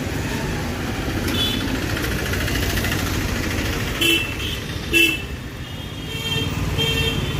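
Street traffic running steadily, with a vehicle horn giving two short toots about four and five seconds in.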